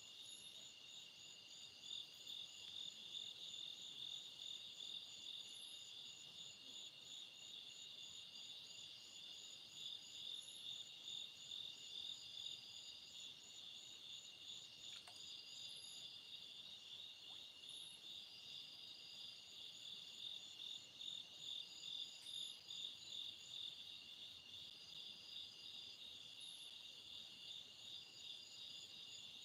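Faint night chorus of crickets and other insects: several high, pulsing trills at different pitches run steadily, and one of them starts and stops every few seconds.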